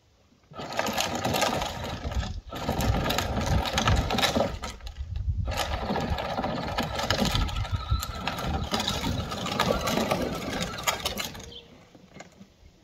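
Battery-powered ride-on toy Ford pickup truck driving over gravel: its small electric drive motors whine over the crunch of its wheels on the stones. It stops briefly twice, a couple of seconds and about five seconds in, and goes quiet near the end.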